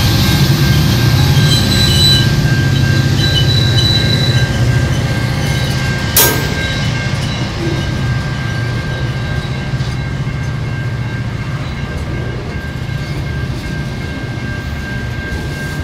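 Freight train of lumber-loaded flatcars rolling past, its wheels rumbling with a steady high-pitched squeal. A single sharp click about six seconds in, and the sound slowly grows quieter.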